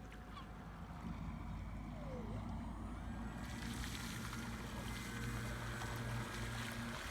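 Battery-powered radio-controlled model motor torpedo boat running on the water, with a steady electric-motor hum. A rushing wash of water from the hull joins in about halfway through.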